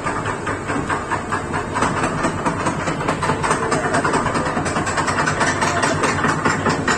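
An engine idling, heard as a rapid, even pulsing over a low hum.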